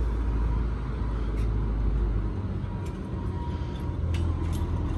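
Low, steady engine rumble, its pitch shifting up a little just over two seconds in, with a few faint clicks.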